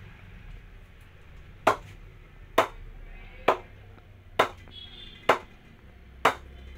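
Red leather cricket ball bounced repeatedly on the face of a CEAT cricket bat: six sharp knocks, a little under a second apart.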